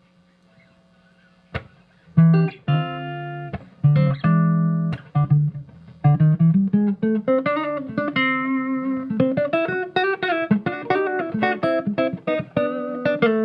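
J Craft Vintage Series Telecaster-style electric guitar played with a clean tone. After a faint hum and a click, a few chords are struck and left to ring, then it moves into quicker picked notes and chord fragments.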